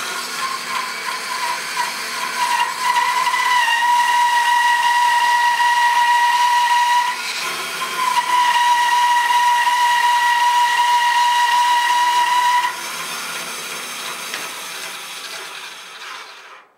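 Bandsaw cutting through a thick birch log, its blade giving a steady high whine that breaks off briefly about seven seconds in. A little before thirteen seconds the whine stops and the saw runs on more quietly, fading out near the end.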